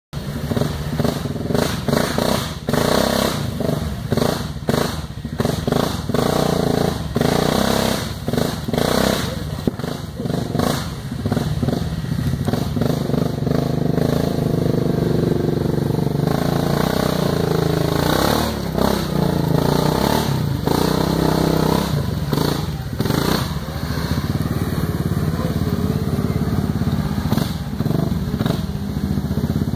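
2009 Yamaha Grizzly 700 ATV's single-cylinder engine revving up and down while stuck in deep mud, its 29.5-inch Outlaw 2 tires spinning. Many sharp knocks and clatters come through in the first half, and the engine runs more steadily after that.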